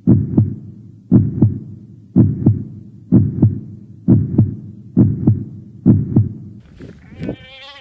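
Heartbeat sound effect: a steady double thump, lub-dub, about once a second, seven beats in all. Near the end a short call with a wavering pitch sets in.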